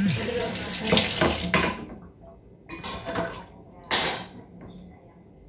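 Kitchen sink sounds: a tap runs for the first couple of seconds, then dishes and a utensil clatter a few times.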